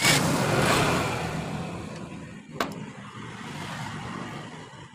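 A motor engine running in the background, loudest in the first second and then fading to a steady lower hum. There is one sharp click about two and a half seconds in.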